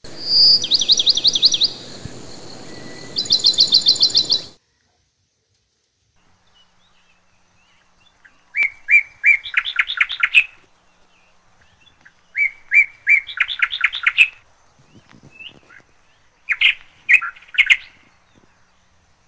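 Songbird song: two fast, high trills in the first few seconds that cut off suddenly, then from about eight seconds in a song repeated three times, each phrase a few separate notes running into a rapid trill.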